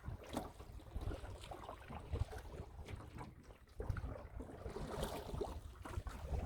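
Wind buffeting the microphone of a boat-mounted camera, rumbling in uneven gusts, with scattered small knocks and clicks.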